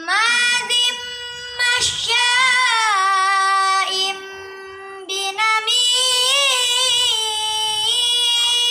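A boy reciting the Quran in a melodic chanted style, holding long drawn-out notes with ornamental turns of pitch and a few short breaks for breath.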